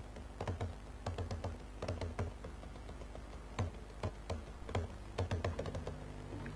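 Irregular sharp clicks and pops, a few a second, over a steady low hum.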